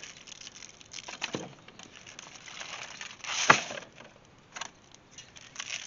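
Hands patting and rubbing dry seasoning rub into a rack of raw pork ribs on aluminum foil, with scattered crinkling crackles and one sharp knock about three and a half seconds in.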